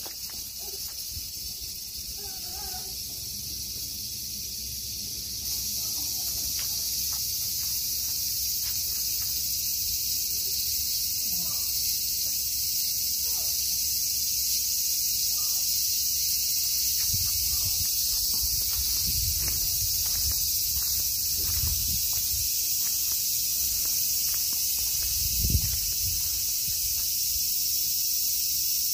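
Dense, steady chorus of insects chirring at dusk. It grows louder a few seconds in. Low rumbling bumps on the microphone come in over the last third.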